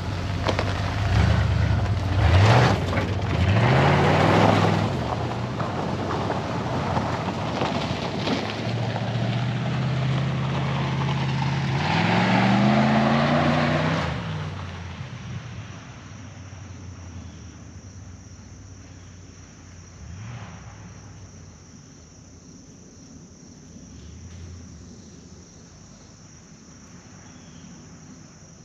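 Ford F-150 pickup's engine revved through its exhaust: quick blips about 2 and 4 seconds in, then a held rev that climbs and drops away about 14 seconds in. After that the engine sound is faint, under a steady high insect chirring.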